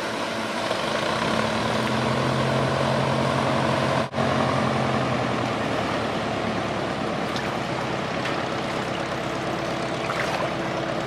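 The pusher propeller engine of a single-engine amphibious plane droning steadily as it taxis on the water, with a motorboat's engine passing in the first few seconds. There is a brief dropout about four seconds in.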